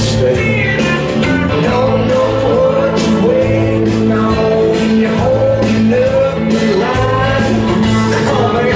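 A recorded rock-pop song played loud through a club sound system: sung vocals over guitar, bass and a steady drum beat.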